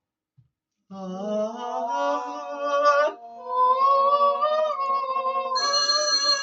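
Vocal warm-up singing: after a second of silence a voice holds a note that slides upward, breaks off, then holds another long wavering note, and a second voice joins on a steady higher note near the end.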